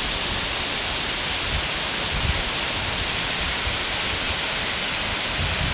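Second fall of the Chutes du Carbet, a tall waterfall, pouring onto rocks: a steady, unbroken rush of falling water with a low rumble beneath.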